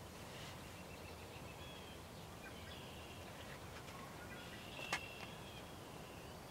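Faint outdoor ambience with songbirds calling in short, high, steady notes scattered throughout, and one sharp click about five seconds in.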